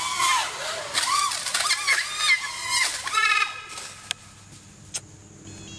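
Five-inch FPV quadcopter's iFlight Xing-E 2306 motors and propellers whining, the pitch sweeping quickly up and down as the throttle changes through flips and dives. The sound falls away about three and a half seconds in, followed by two sharp clicks.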